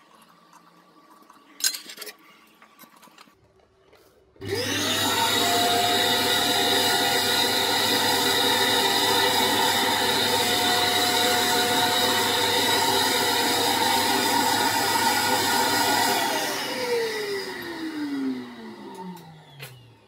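Vacuum cleaner of a vacuum casting station switched on, quickly reaching a steady whine and running for about twelve seconds, then switched off and winding down with a falling whine. A sharp click comes a few seconds before it starts.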